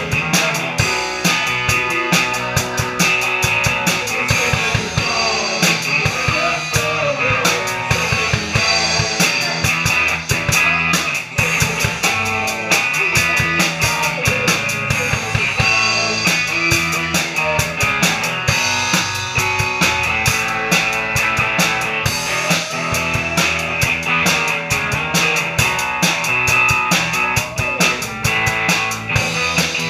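A rock band playing live: a drum kit with Zildjian cymbals keeps a steady beat under amplified electric guitars.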